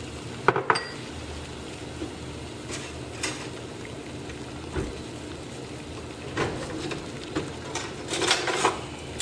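A pot of broth simmering, a steady bubbling hiss, with scattered sharp clinks and knocks: two about half a second in, a few single ones through the middle, and a cluster near the end.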